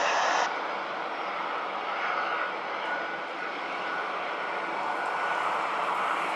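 Jet airliner's engines heard from the ground as it climbs away overhead: a steady rushing engine noise that grows slightly louder near the end.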